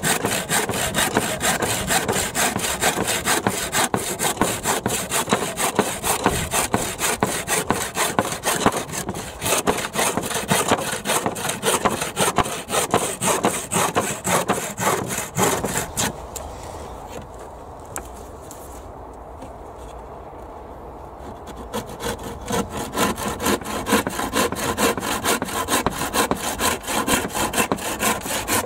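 Handsaw (rip saw) cutting softwood fence-picket boards, a rapid, steady back-and-forth rasp of the teeth through the wood. The sawing stops for several seconds a little past halfway, then starts again.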